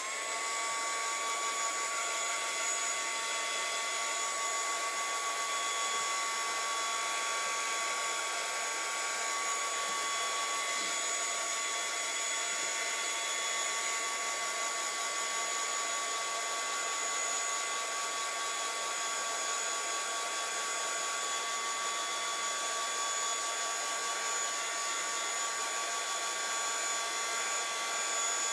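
Handheld craft heat gun running steadily, a constant rush of blown air with a steady high motor whine.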